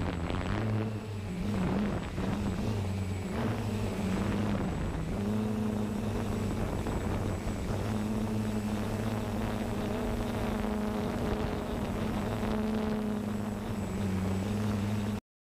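Multirotor drone's motors and propellers humming steadily, the pitch wavering slightly as it manoeuvres; the sound cuts off suddenly at the very end.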